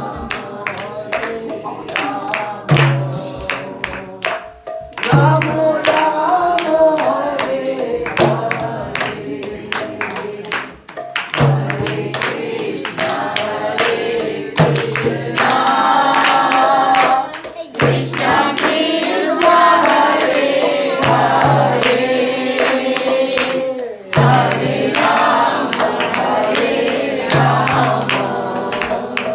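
Devotional group singing, in the manner of a kirtan, over a steady low drum beat about once a second and quick sharp percussive strikes.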